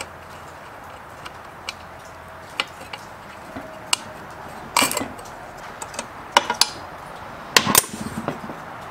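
Hand tools and metal parts clinking and knocking during work on an old chainsaw: scattered single taps, with three louder clusters of knocks about five, six and a half and nearly eight seconds in.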